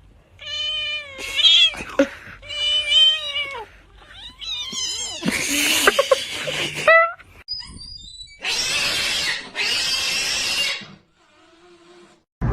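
A domestic cat yowling in several long, drawn-out wails whose pitch bends up and down, then giving long harsh hisses, two of them in a row in the second half.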